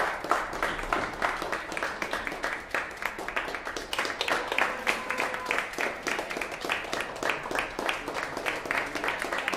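A small audience applauding, many hands clapping steadily and densely.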